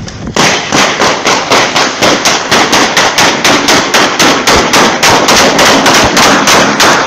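A long run of gunshots, evenly spaced at about four a second, starting about half a second in and continuing without a break.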